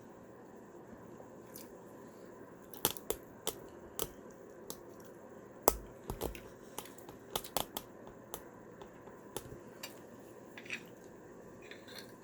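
Close-up eating sounds: irregular crunchy bites and chewing, heard as scattered sharp clicks and crackles, busiest in the middle of the stretch.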